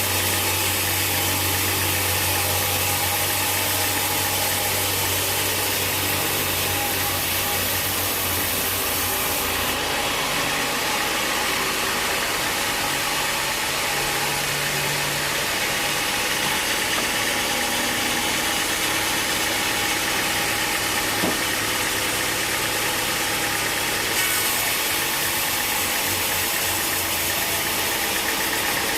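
Sawmill machinery running with a steady engine hum and a broad mechanical noise. The high hiss drops about ten seconds in and returns later.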